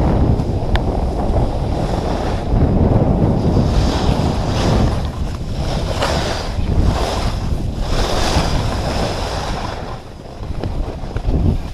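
Wind buffeting the camera microphone: a loud, steady rumble with several swells of hiss.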